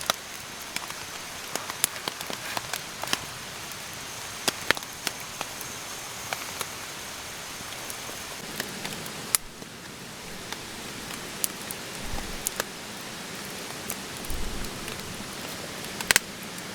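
Steady rain falling, with scattered sharp drops tapping on a nearby surface.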